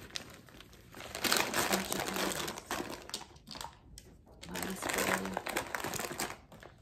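Crinkly plastic snack-chip bag rustling and crackling as it is handled and pushed down into a handbag, in two bouts of about two seconds each.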